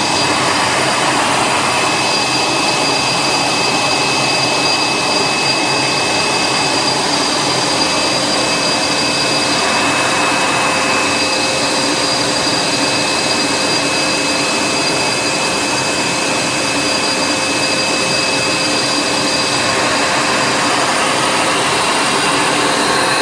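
Jingwei RC03 pattern cutting and template milling machine running, a steady high-pitched whine over a loud, even rushing noise.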